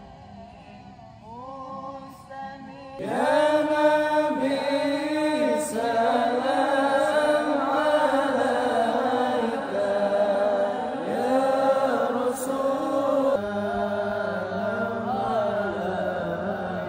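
A group of men chanting an Arabic sholawat together. It starts softly, and the full group comes in loudly about three seconds in, holding long, gliding notes.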